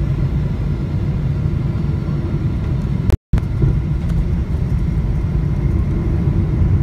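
Steady low rumble heard inside the cabin of a Boeing 777-300ER during its landing rollout on the runway. The sound cuts out completely for a moment about three seconds in.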